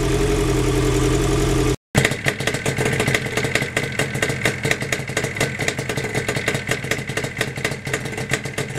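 A Kawasaki motorcycle engine idles steadily, warming up on choke from cold, and cuts off sharply after about two seconds. A Yamaha air-cooled two-stroke engine then idles with a fast, uneven crackle.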